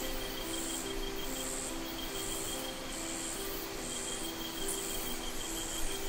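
Rainforest insects chirping: a high chirp repeating evenly a little more than once a second, over a thin steady trill.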